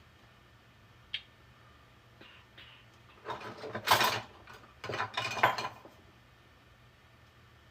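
3D-printed plastic fidget ring being spun and worked by hand: a sharp click just over a second in, then two short bursts of clattery plastic clicking as the inner ring is turned inside the outer one.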